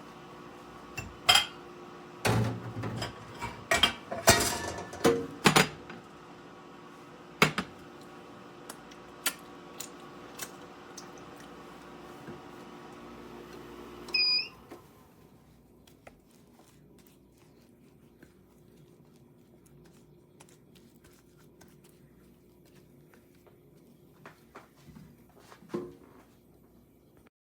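An ice cream maker runs with a steady hum while metal and plastic parts clink and knock sharply several times in the first few seconds. About halfway through, a short electronic beep sounds and the hum cuts off, leaving faint room sound with a few soft knocks.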